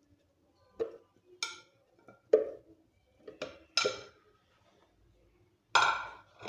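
Pieces of lemon and peach dropped by hand into a blender jar. They make a series of irregular clinks and knocks with a short ring, one loud one near the end.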